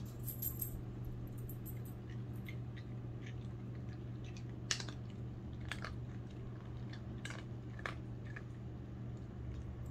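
Small Pomeranian-Chihuahua mix chewing dry kibble, with a few sharp, scattered crunches over a steady low hum.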